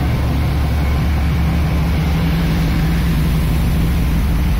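Steady low drone of a tuna fishing boat's engine machinery running, a constant deep hum with a slightly higher steady tone above it.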